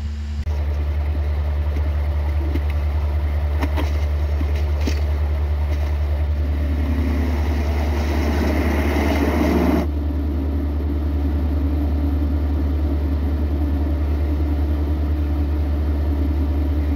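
A steady low mechanical hum of a running motor. A fuller rushing noise builds from about six seconds in and cuts off suddenly near ten seconds.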